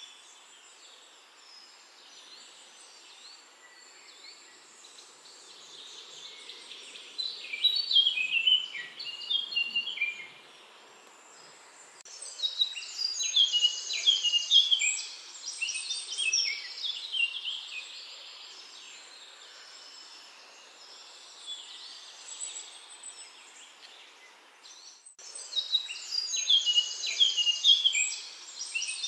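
Birds singing in three bursts of rapid, high chirps and trills, with quieter stretches of faint background noise between them.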